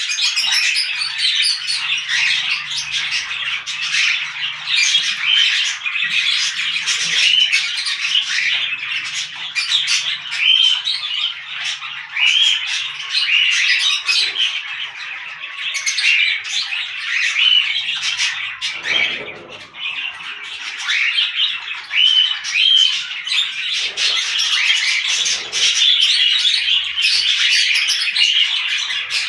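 A mixed flock of small parrots (budgerigars, lovebirds, cockatiels and kakarikis) chattering and squawking without pause, with many short rising chirps.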